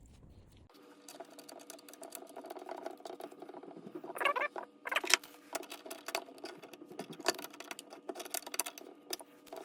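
Small irregular clicks, ticks and scrapes of hand work on the lather machine's small metal parts and screws during reassembly, over a faint steady hum. A short squeak about four seconds in.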